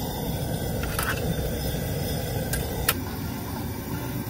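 Outdoor gas burner running under a large boil pot, a steady roar, with a sharp metallic click about three seconds in.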